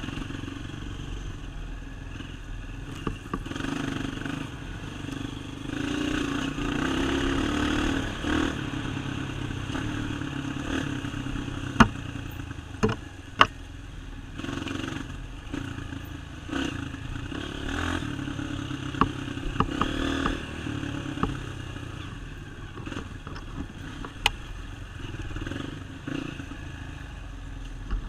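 Dirt bike engine running on a trail ride, its revs rising and easing with the throttle, with rattles and a few sharp knocks from the bike over rough ground, the two loudest about halfway through.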